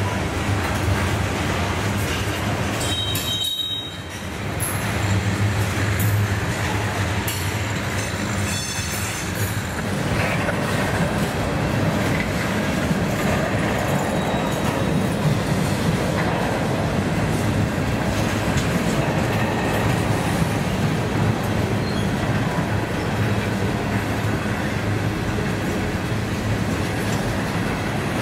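Canadian National freight train rolling past, with a steady, loud rumble of wheels on rail and a brief high squeal about three seconds in.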